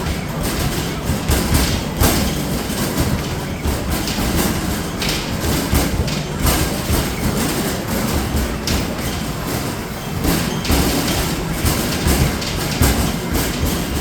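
Arcade basketball machine in play: a rapid run of thuds as balls hit the backboard and rim, then roll back down the return ramp, over a steady arcade din.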